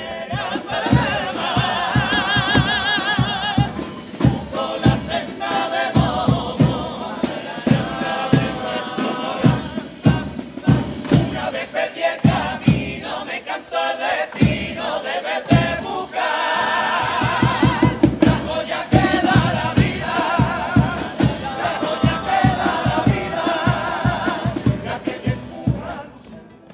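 Carnival comparsa choir of men singing together in harmony, holding wavering notes, accompanied by steady drum beats.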